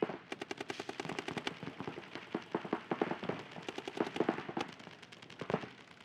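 Paintball markers firing rapid strings of shots, several guns overlapping into fast, dense popping, which thins out to scattered shots near the end.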